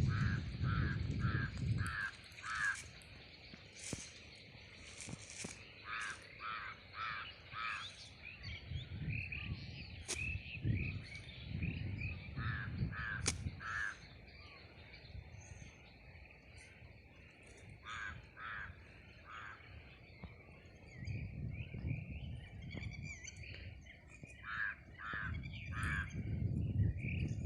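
Birds calling: several runs of four to six harsh, evenly repeated calls at about three a second, over steady high chirping of smaller birds. A low rumbling noise comes and goes.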